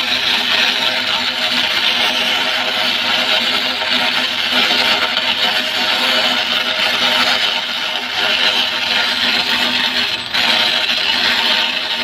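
Stick-welding arc of an E6010 electrode burning steadily during an uphill root pass on a pipe joint. The arc makes an even, loud hiss that drops out for a moment about ten seconds in, then picks up again.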